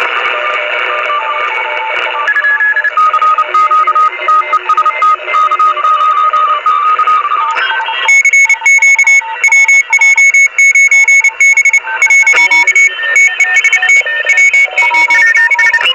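Morse code signals received on a radio tuned near 28.0 MHz in the 10-metre band: several beeping tones at different pitches keyed on and off over receiver hiss. About eight seconds in, as the tuning steps up, a louder, higher-pitched signal takes over, keying in quick on-off bursts.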